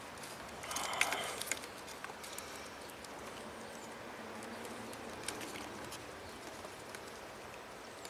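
Faint scattered clicks and scraping of hand wire strippers biting into and working the insulation on a car's wiring, over a low steady background hiss.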